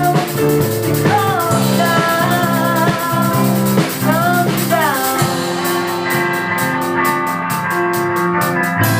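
Rock music: a singing voice over a band with drums. About halfway through, the voice gives way and a steady beat of cymbal strokes comes to the fore.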